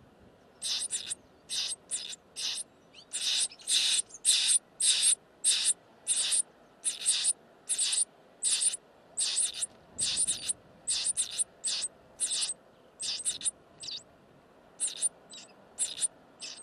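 Nestling birds begging: a steady series of short, harsh screeching calls, about two a second, with brief pauses near the middle and toward the end.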